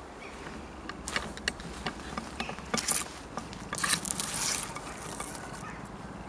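Leaves and twigs rustling and scraping against a handheld camera as it is pushed through shrubbery. Scattered sharp clicks, with louder scraping bursts about three seconds in and again around four seconds.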